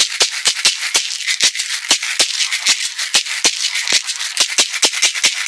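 Caxixi, a woven basket rattle filled with dried Indian shot (cana-da-índia) seeds, shaken in a quick, steady rhythm; each stroke gives a sharp, bright rattle of seeds against the hard base.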